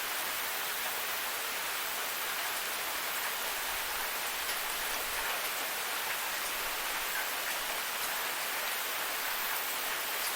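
A waterfall's steady rush of falling water: an even hiss that is strong in the high range, with little low rumble.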